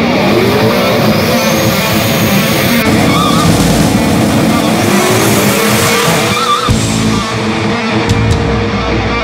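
A drag-racing car's engine revving hard under acceleration, its pitch climbing several times and dropping back about three seconds in and again near seven seconds. Background music plays over it.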